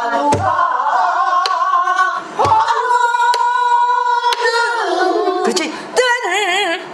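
Pansori singing: a vocal line with long held notes, the middle one sustained for over a second, and wide vibrato near the end. Under it, a couple of low strokes on a buk barrel drum keep the beat.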